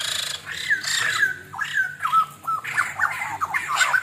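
White-crested laughingthrush calling: a fast chattering string of short, swooping notes that starts suddenly and runs on without a break.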